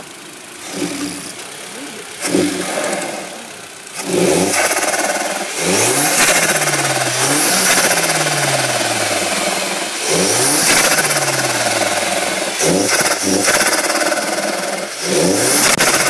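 Audi A4 B5's 1.8-litre turbocharged four-cylinder engine revved repeatedly: a series of short throttle blips and two longer pulls, each rising in pitch and then falling away slowly. The turbo flutters as the throttle shuts.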